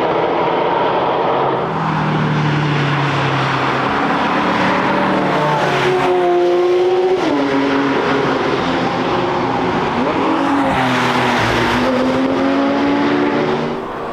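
Cars being driven hard past on a race track, engines climbing in pitch under acceleration, with a sharp drop in engine note about halfway through as a car shifts or lifts off.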